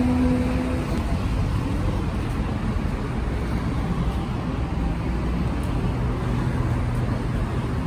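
City street traffic noise: a steady low rumble of passing road vehicles. A held musical tone dies away in the first second.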